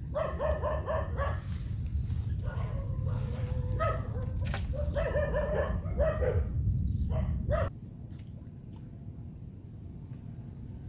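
A dog barking repeatedly in several quick runs of barks. Under the barks is a low rumble, and both stop abruptly about three quarters of the way in.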